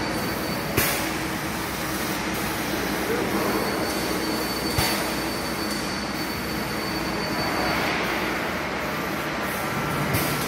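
Steady industrial machine noise with a faint high whine, broken by two sharp knocks, one about a second in and one near the middle.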